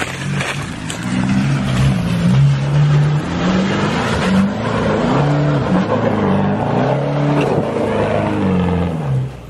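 Holden RC Colorado ute's engine revving up and down repeatedly as it is driven hard along a dirt track, with its tyres churning the dirt. The engine note falls away near the end.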